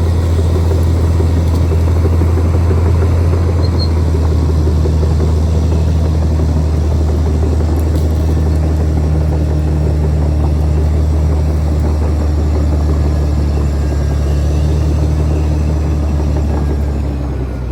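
Caterpillar D6R XL bulldozer's diesel engine running steadily with a deep, even drone, easing off slightly near the end.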